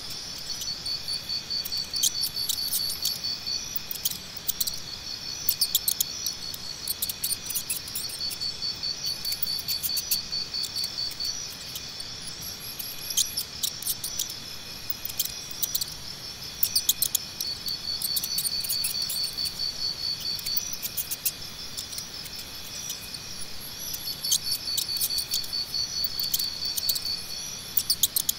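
Crickets chirping in rapid trills that come in bouts of a few seconds and then pause, with many short, sharp high chirps scattered over them.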